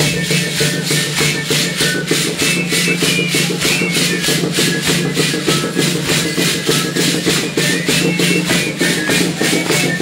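Many sonajas, wooden rattle sticks with metal jingles, shaken in unison by dancers in a fast, even rhythm of about five strokes a second. Over it a pipe plays short high notes, with a drum accompanying.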